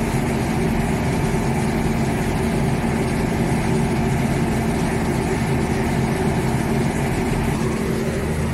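A boat's engine idling: a steady, low mechanical drone with unchanging hum tones.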